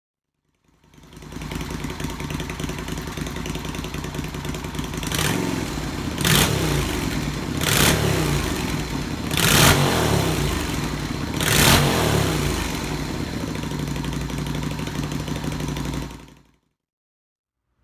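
Yamaha Virago 250's air-cooled V-twin running through open Daytona drag pipes, idling with five quick throttle blips in the middle, then stopping abruptly.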